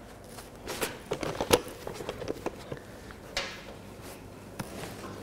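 Handling noise as welding gauntlets are pulled on and welding gear is picked up: scattered light knocks and clicks, the sharpest about one and a half seconds in, and a brief rustle a little past three seconds.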